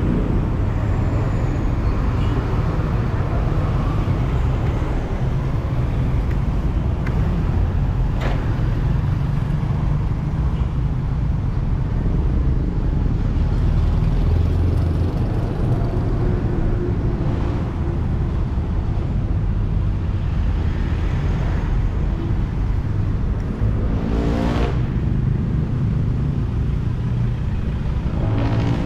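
Steady rumble of road traffic, with one engine passing more loudly near the end.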